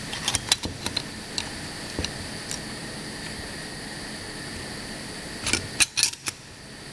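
Automatic through-hole component insertion machine running: a steady mechanical hum with sharp clicks and snaps from the insertion mechanism, several in the first second, a few scattered single ones, and a loud cluster about five and a half to six seconds in.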